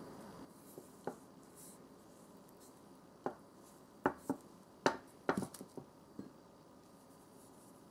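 A wooden rolling pin handled on a paper-covered tabletop: a soft rustle of paper and hands, then a scatter of short, sharp wooden knocks and clicks, thickest near the middle, as the pin is rolled and set down.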